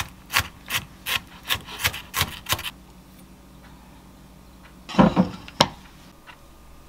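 A chef's knife chops diced onion on a wooden cutting board in even strokes, about three a second, stopping about two and a half seconds in. About five seconds in, a small wooden plate knocks a few times as it is set down on the counter.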